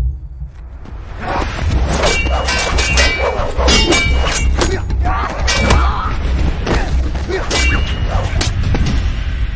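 Sword-fight sound effects: a rapid series of sharp metallic clangs, some ringing briefly, starting about a second in, over background music with a heavy low beat.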